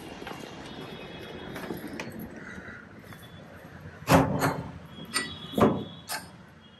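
A steady hiss, then about five knocks and thumps in quick succession in the second half.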